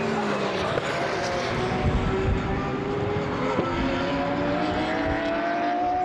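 GT3 race car engines running at full throttle, several cars' notes overlapping; in the second half one engine's note climbs steadily as it accelerates out of the corner.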